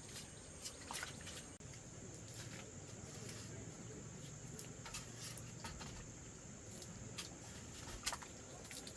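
Faint, steady high-pitched drone of insects, with scattered sharp clicks or taps.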